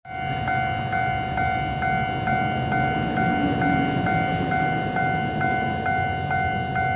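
Railway level-crossing warning bell ringing, a bright electronic ding repeated a little over twice a second, over a low rumble.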